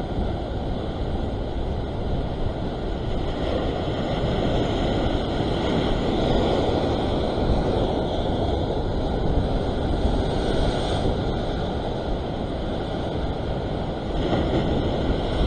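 Ocean surf washing and foaming over a rock ledge, with wind buffeting the microphone. The rush swells a few seconds in, eases off, then surges again near the end.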